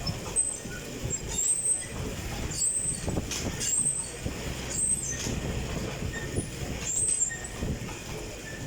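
Fan exercise bike being pedalled: the fan's air rush and the drive's rumble, with a short high sound about once a second.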